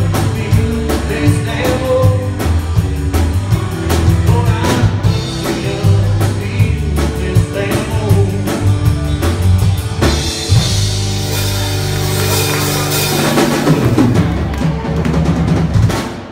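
Live band with electric guitars, bass and drum kit playing a country-rock song to a steady drumbeat. About ten seconds in they hit and hold a closing chord under a wash of cymbals, which dies away near the end.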